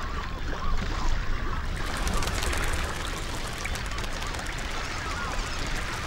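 A large flock of black-bellied whistling ducks calling together, a dense chorus of many overlapping short whistles, over a steady low rumble.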